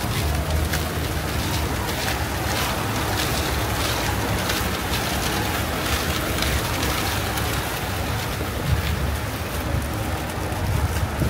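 Steady street noise along a busy boulevard: a low rumble of traffic under a constant hiss, with no single event standing out.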